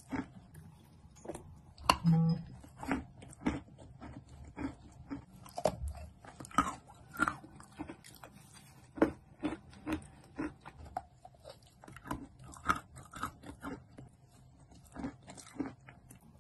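Close-miked mouth sounds of eating wet chalk paste off a spoon: irregular sticky smacks and crunchy chewing clicks. There is a louder burst about two seconds in.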